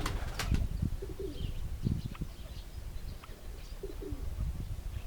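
Domestic pigeons cooing in short low calls, with small birds chirping high and quick throughout. A short sharp clatter sounds just after the start, over a low rumbling background.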